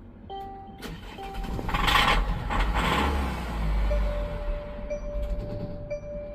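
Diesel engine cranking and catching about two seconds in, then running with a low rumble, while a steady electronic warning tone from the dash sounds in the second half. The engine had a no-start with a fault code for water in the fuel system.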